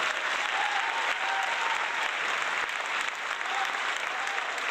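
A group of people applauding with steady, dense clapping, with a faint call or two above it.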